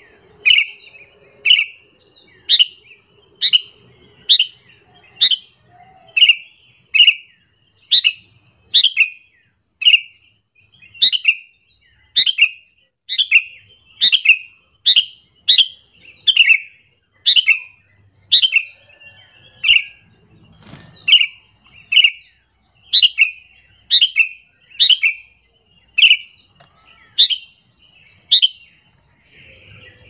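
Sooty-headed bulbul (kutilang) giving a short, sharp falling call note over and over, about once a second, at a steady rate. This is the bulbul's call that trappers play as a lure to draw other bulbuls.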